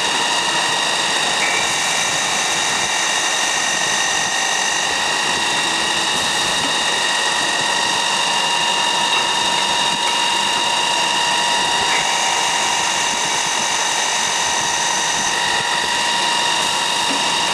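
MSI ChamferMate chamfering machine running, its turning head chamfering the end of a bar held in the overhead clamp: a steady machine noise with a high whine of several tones.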